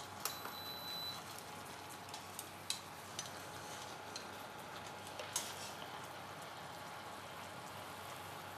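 Soy-sauce braising liquid simmering in a stainless pan on an induction cooktop: a low steady sizzle, with a few light clicks of chopsticks and ladle against the pan as the chicken is lifted out. Near the start the cooktop gives one short beep as its control is pressed.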